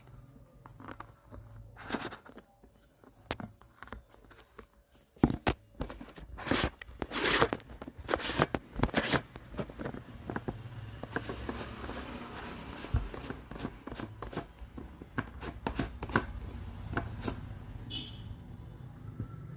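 Hands working on a vacuum flask's parts: clicks, knocks and scraping of plastic and metal pieces being handled and taken apart. The sounds are sparse at first and come thick and fast from about five seconds in.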